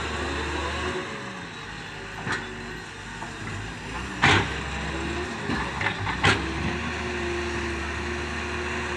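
Doosan excavator's diesel engine running steadily under work, with a few sharp knocks; the loudest comes about four seconds in.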